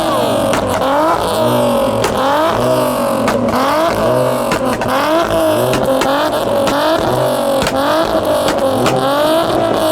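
Car engine being revved hard over and over, its note sweeping up and dropping back about three times every two seconds. Sharp exhaust pops and bangs come between the revs, and the car is shooting flames from the exhaust.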